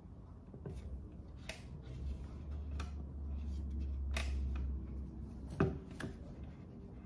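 Handling noise: a few soft clicks and rustles as a sneaker is picked up and turned over, with a low rumble through the middle.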